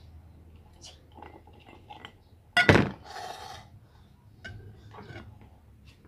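A glass mug with ice knocking against a plastic table as it is picked up: one loud knock about two and a half seconds in, followed by a brief rattle, with small clicks scattered around it.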